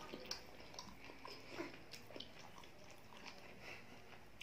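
Quiet, close-up eating sounds: fingers squishing chicken curry and rice on a plate, with chewing and a scatter of small wet clicks.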